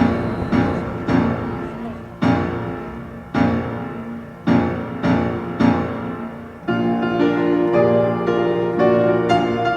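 Piano music: loud chords struck about once a second, each fading away, then fuller, sustained playing from about two-thirds of the way through.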